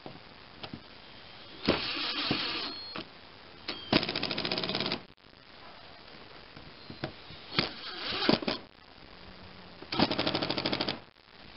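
Cordless mini impact driver hammering screws tight on a small-engine carburetor assembly, in four separate bursts of about a second each.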